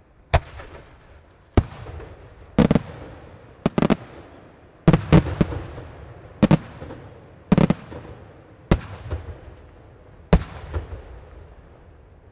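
Aerial firework shells bursting one after another: about a dozen sharp booms, some in quick pairs, each trailing off in a rolling echo.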